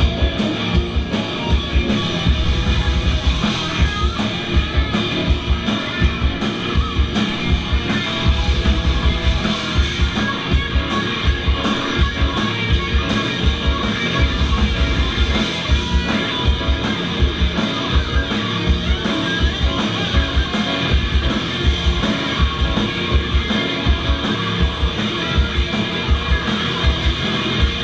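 Metal band playing live: distorted electric guitars and keyboard over a driving kick drum that breaks at times into fast runs of hits, loud and dense throughout.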